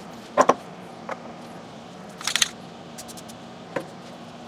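Scattered sharp clicks and light handling knocks from a hand tool and small parts being worked at the engine's crankshaft: a loud pair of clicks about half a second in, a brief crackly cluster a little past two seconds, and a few softer ticks after.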